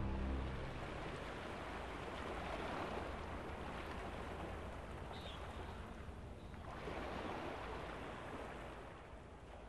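Sea waves washing onto a beach, a steady rush that swells twice, about three seconds in and again about seven seconds in.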